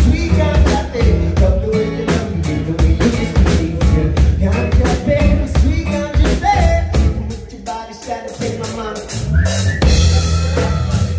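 Live band music from acoustic guitar, electric bass and drum kit, with a male singer's vocals over a steady drum beat. About eight seconds in the drums and bass thin out briefly, then come back in full.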